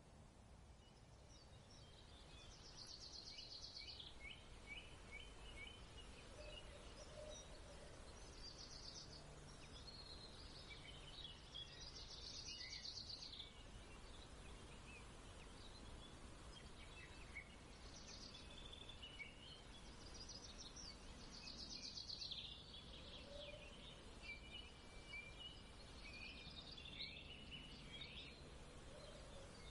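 Faint songbirds singing, short trilled phrases repeating every few seconds over a low, steady background hum.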